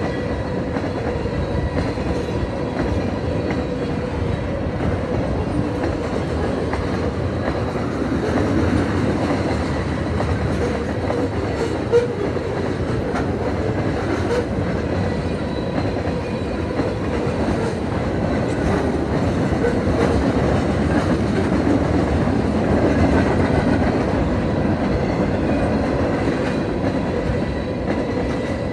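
Freight train of tank cars and autorack cars rolling steadily past, wheels clattering over the rail joints. A single sharp knock about twelve seconds in.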